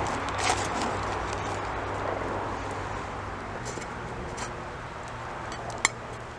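Campfire crackling over a steady outdoor background hiss, with a few sharp pops, one about half a second in and the loudest near the end.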